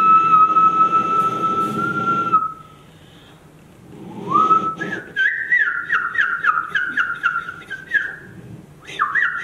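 Whistling coming out of a small Kustom amplifier speaker. One long steady note is followed, after a pause, by a rising note and then a quick run of short falling whistles, about three a second, with a few more near the end.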